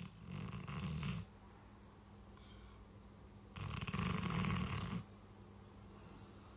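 A sleeping dog snoring: two loud snores about three and a half seconds apart, each lasting just over a second, with quieter breathing between them.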